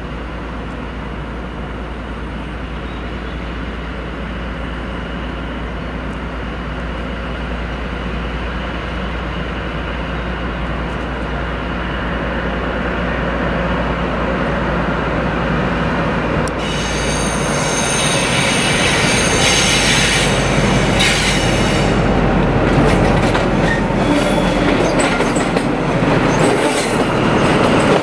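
Class 43 HST power car's diesel engine working as the train pulls away and approaches, its rumble growing steadily louder. From a little past halfway, wheel squeal and the noise of the wheels on the rails join in, loudest as the power car passes close by near the end.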